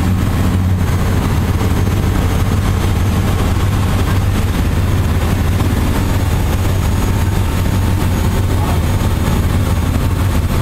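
A large engine running steadily with a loud, even, low hum that neither rises nor falls.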